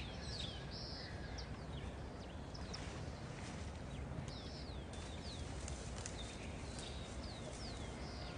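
Small birds chirping on and off, many short high notes that slide downward, over a steady low outdoor rumble.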